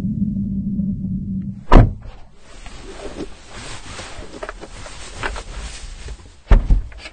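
A low droning rumble cuts off at a heavy, booming thud, followed by quiet car-cabin sounds with small clicks and rustles. A second heavy thud comes near the end.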